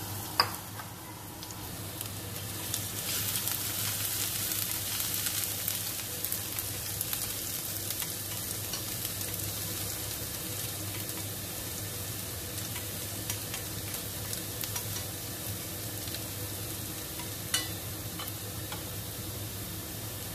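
Minced garlic sizzling in hot oil in a stainless steel frying pan, stirred with a wooden utensil, with small crackles throughout. A sharp knock comes about half a second in and another near the end.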